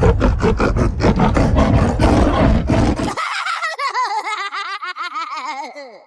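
Evil-laugh sound effects: a loud, harsh, roaring laugh pulsing about five times a second cuts off abruptly about three seconds in. A higher, pitched cackle follows, its pitch bobbing rapidly up and down, and fades out near the end.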